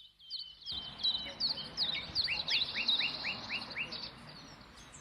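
Songbirds chirping and singing, several calls overlapping, with a quick run of about seven falling notes in the middle, over a steady background hiss.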